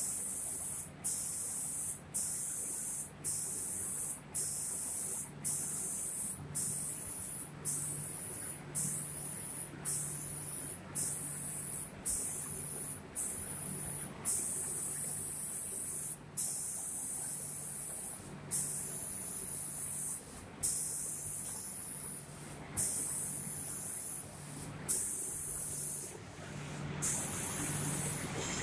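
Spray guns of an automatic paint spraying machine hissing in repeated bursts as they switch on and off, roughly once a second, with some longer bursts in the second half. A low hum runs underneath.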